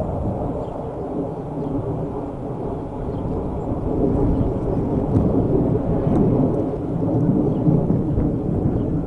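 Thunder rumbling low and continuously, growing louder about four seconds in.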